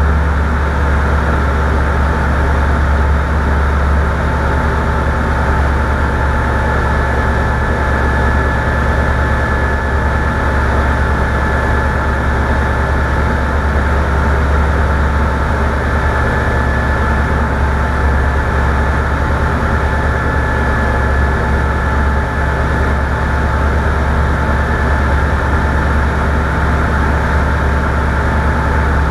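Light aircraft engine running at a steady, even drone with a deep low hum and faint steady tones above it, holding constant power throughout.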